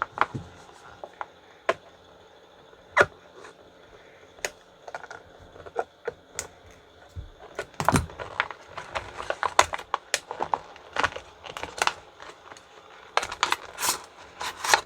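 Hands unpacking a floating tie-down from its packaging: scattered clicks, taps and rustles of packaging and plastic parts being handled, busier in the second half.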